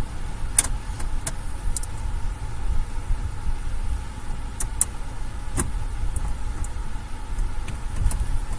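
Scattered light clicks and taps from working at screws in a car's plastic dashboard trim, over a steady low rumble.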